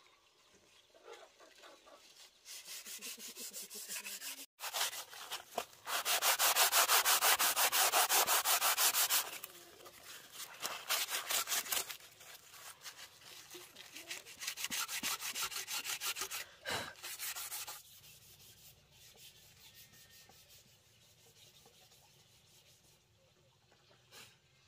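A rough green leaf scrubbed hard back and forth over a small slatted wooden stand, sanding the wood. Quick, even strokes come in several spells and are loudest in the middle, then fade to faint rubbing for the last several seconds.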